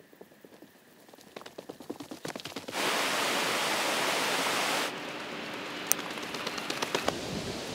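Faint footsteps through grass, then the rush of a mountain stream under a log footbridge for about two seconds. It cuts off suddenly to footsteps on a dirt track over a steady hiss.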